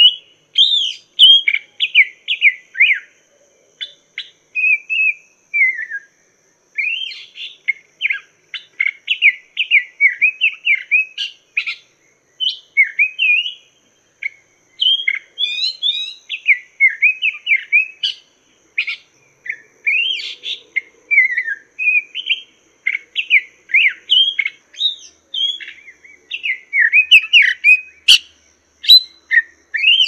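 Poksay Mandarin laughingthrush singing a long, varied song of quick whistled phrases with brief pauses, with a sharp click near the end.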